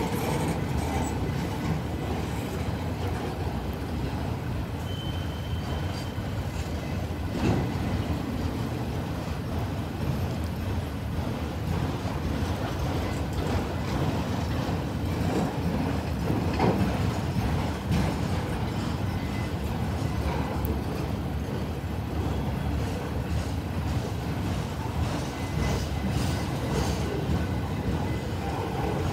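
A long freight train of autorack cars rolling slowly past at close range: a steady rumble of wheels on rail, with an occasional louder knock.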